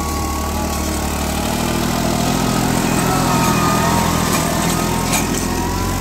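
Tractor's diesel engine running steadily under load as it pulls a plow through grassy soil.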